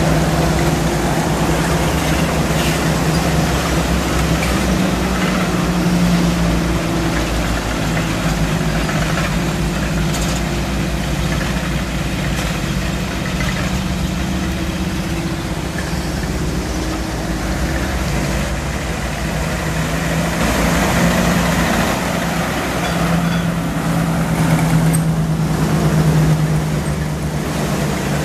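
WWII US halftracks driving past one after another, their engines running steadily with a low rumble. The sound swells as each vehicle comes close, loudest about 6 seconds in and again near the end.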